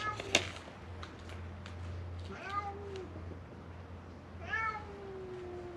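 Feral cats meowing, the crying of hungry cats begging for food: a short meow about two and a half seconds in, then a longer drawn-out meow that slowly falls in pitch. A single sharp click comes just after the start.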